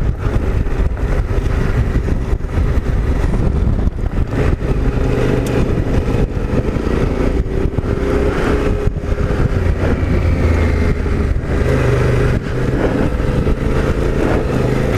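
Off-road motorcycle engine running under way, its pitch rising and falling a little with the throttle.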